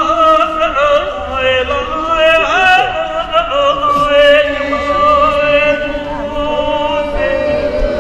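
Singing, with long held notes that waver slightly in pitch.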